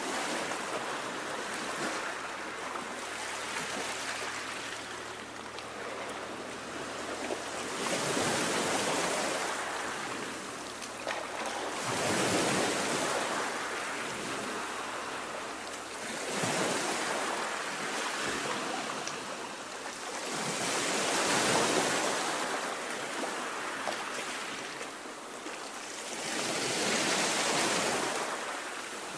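Choppy sea water washing and splashing close by, a steady rush that swells into louder surges of wave wash every four to five seconds.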